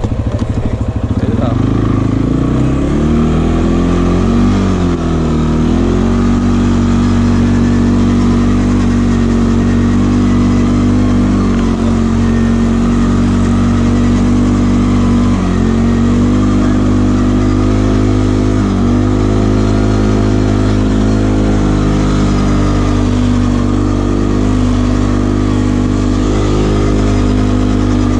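ATV engine running under throttle while riding. Its pitch rises and falls over the first few seconds, then holds steady, with two brief dips past the middle.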